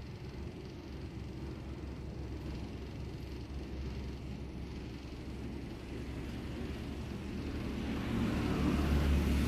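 Steady low rumble of background road traffic, growing louder over the last second or two.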